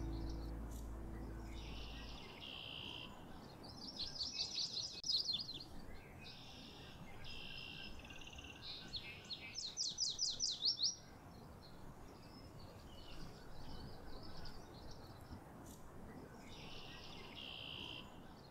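Songbirds singing: a series of high, separate phrases a few seconds apart, some of them fast trills of quick rising notes, as the soundtrack music fades out in the first couple of seconds.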